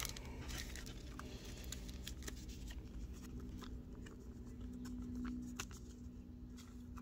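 Soft scattered clicks and rustles of a trading card and a clear plastic penny sleeve being handled as the card is slid into the sleeve, over a faint steady low hum.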